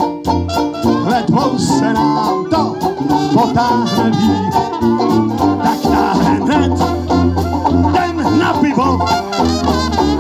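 Dixieland band playing live, with trumpet and trombone over sousaphone bass, drum kit and banjo.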